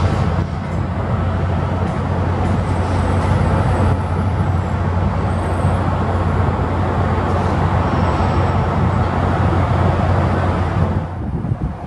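Amtrak passenger train of stainless-steel coaches rolling slowly away over the tracks, a steady low rumble of wheels on rail that fades near the end.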